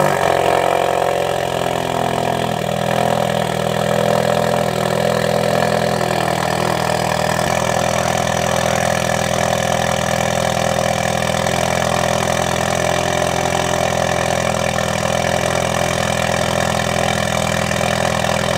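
Ford Focus RS 2.3-litre turbocharged four-cylinder idling loud and steady just after a cold start. It runs through a straight-through ETS exhaust with no catalytic converters, resonators or mufflers.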